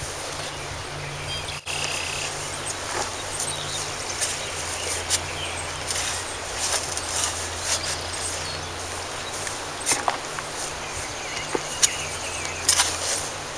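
Outdoor ambience: birds chirping, with irregular short scrapes and knocks and a steady faint hum.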